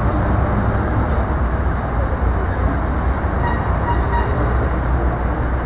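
Steady low background rumble with no single clear source, with a few faint paper rustles as a booklet's pages are turned.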